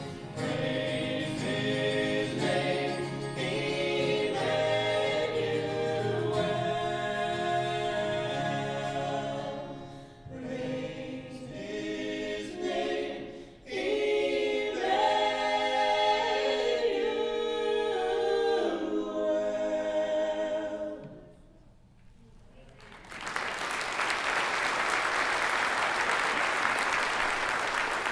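Choir singing a piece to its end about three-quarters of the way through, then a brief hush. Audience applause begins about five seconds before the end.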